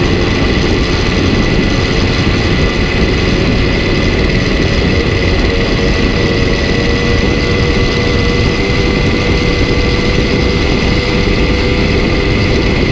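A derny pacing motorbike's engine running steadily at track speed, heard from a camera mounted on the bike itself: a loud continuous rumble with a steady high whine over it.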